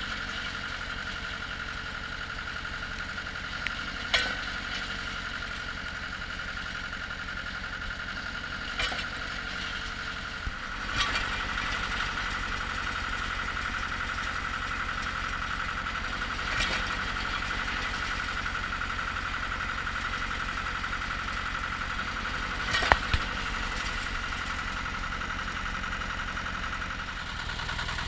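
Cable percussion drilling rig running: a steady engine drone with a constant whine. It gets a little louder about ten seconds in. Sharp metallic clanks come every few seconds, including a quick double clank near the end.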